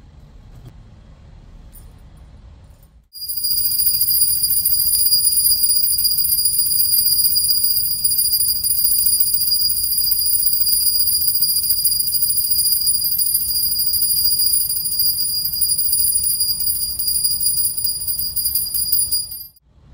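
Small brass puja hand bell rung continuously during the aarti, a steady high ringing that starts about three seconds in and stops abruptly just before the end.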